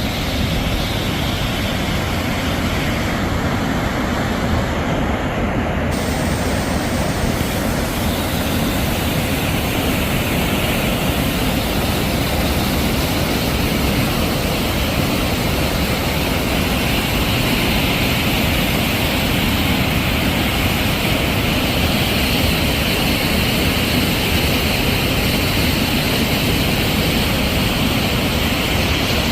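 A waterfall's steady rush of falling water, an even, unbroken noise.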